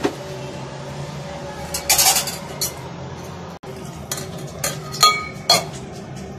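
Clinks and knocks of a glass blender jar, filled with sliced onions and other masala ingredients, being handled and set on its motor base before grinding. The knocks come scattered, and the loudest, about five seconds in, rings briefly.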